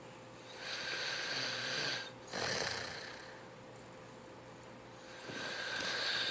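A sleeping person snoring: a long, hissing snore breath, a shorter, lower one right after it, then a pause of about two seconds before the next breath begins near the end.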